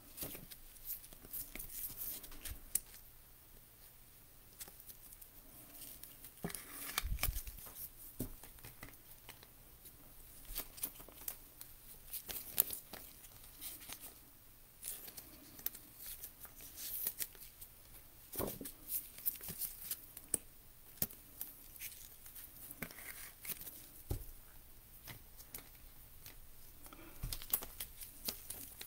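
Trading cards being handled and sorted: scattered light clicks, slides and short rustles of card stock and plastic card holders, with a few brief crinkles.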